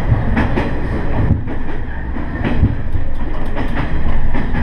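Diesel railcar under way: a steady low rumble of engine and running gear, with irregular sharp clacks from the wheels on the track.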